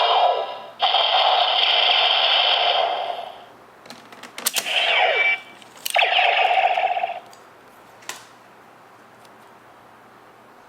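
DX Neo Decade Driver toy belt playing a Final Attack Ride card sound effect through its small speaker: a loud electronic sound for about three and a half seconds, a falling sweep with sharp plastic clicks, then a shorter burst about six seconds in and a single click about eight seconds in.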